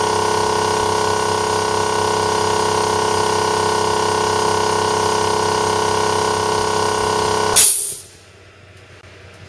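TWO STAR HT25L-15A 12-volt DC piston air compressor running steadily with a constant whine as its tank nears 8 kg/cm². About three-quarters of the way through it shuts off at that cut-out pressure with a short, loud hiss of released air.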